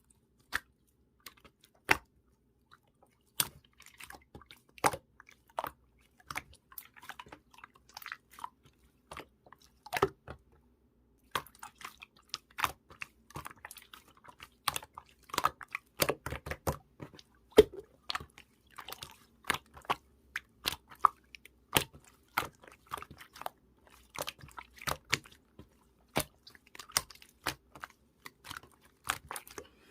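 Slime being handled and squished by hand, making irregular sharp clicks and pops, several a second.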